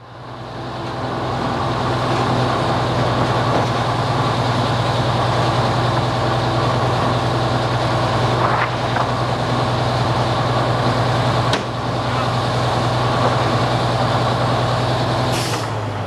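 Heavy diesel engine of the recovery equipment running steadily close by, with a deep even drone. A brief squeal comes about nine seconds in, a sharp knock a little later, and a short hiss near the end.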